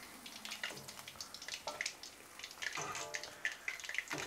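Hot deep-frying oil crackling and popping irregularly, just after the heat has been switched off, with a denser cluster of pops about three seconds in.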